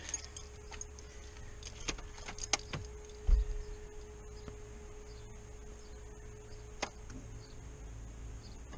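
A Rover 75 having its ignition switched on from outside the car: a few sharp clicks and one dull thump about three seconds in, over a steady electrical hum that steps down to a lower pitch after a click about seven seconds in.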